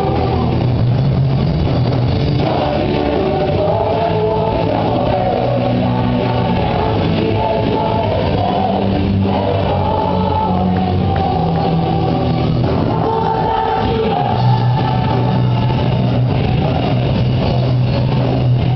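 Worship band playing rock-style praise music with voices singing.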